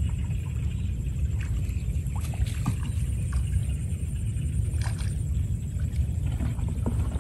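Wind buffeting the microphone in a low, uneven rumble, over soft splashes and drips of water as a wet cast net is hauled in by hand from a pond.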